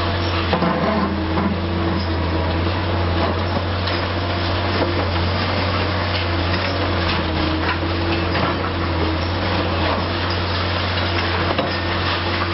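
Liebherr R 960 high-reach demolition excavator's diesel engine running steadily as a constant low drone, under a noisy haze with scattered knocks and clatter.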